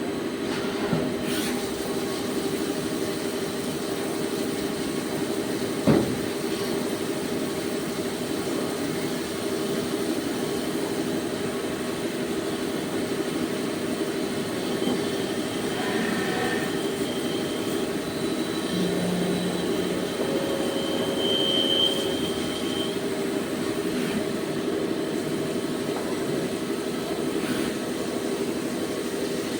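CNC turning machine running with a steady mechanical drone, brief high whines of the cut now and then, and a single sharp knock about six seconds in.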